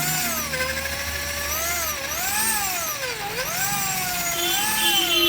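Electric drill running under load, its whine rising and falling in pitch as the bit bores out the holes in a washing-machine drum spider.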